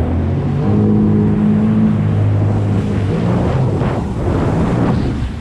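Sea-Doo Trixx jet ski engine running hard at steady revs, its pitch shifting about halfway through, with wind and water rushing past.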